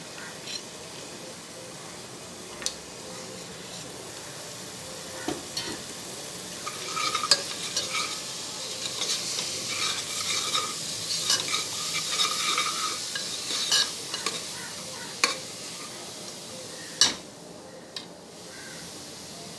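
Metal ladle stirring and scraping spiced onion-tomato masala in a pressure cooker pot over the heat, with a light sizzle underneath. Several sharp clinks of the ladle against the pot, the scraping busiest in the middle. This is the stage where the masala powders are mixed into the frying base.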